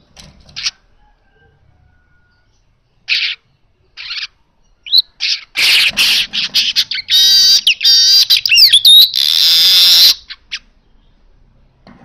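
Male manyar weaver singing. A few short chirps come first, then about five seconds of loud, rapid chattering song with sweeping notes, ending in a long wheezy buzz.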